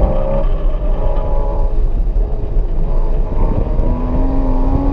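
Porsche Cayman S engine heard from inside the cabin, driven hard through an autocross course over a constant low rumble of road and tyre noise. About four seconds in, the engine note rises steadily as the car accelerates.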